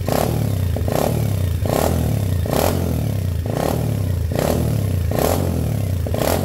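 The X-Pro Storm 125cc pit bike's single-cylinder four-stroke engine, freshly fitted with a big bore kit and race head, running steadily during its first break-in run, with a regular pulse a little under once a second.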